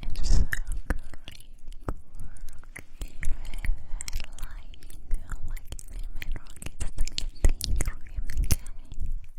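Close-miked ASMR mouth sounds: a dense, irregular run of sharp clicks and smacks from the lips and tongue.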